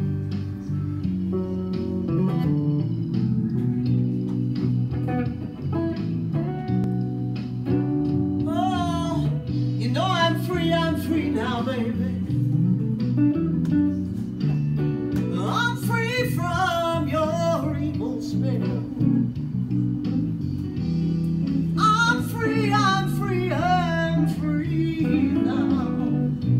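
Live blues: a guitar plays a steady, repeating accompaniment, and a woman's voice comes in singing about eight seconds in, in three phrases with gaps between them.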